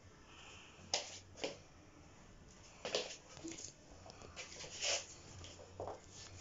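Small hard dog treats being set down one at a time on a laminate floor: a handful of sharp little clicks and taps, a second or two apart.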